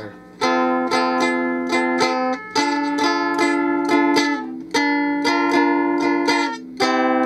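V-shaped electro-acoustic ukulele strummed with a pick and heard through a small amplifier: chords ringing on one after another, the strumming breaking off briefly three times.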